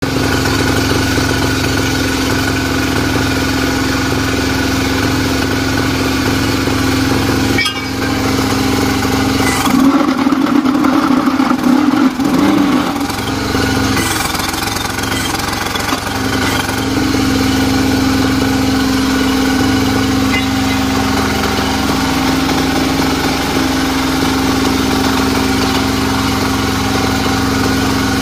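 Single-cylinder diesel engine running steadily, driving the hydraulic pump of a concrete block moulding machine. From about ten seconds in, the engine note changes and grows louder for a few seconds, then settles back to its steady run.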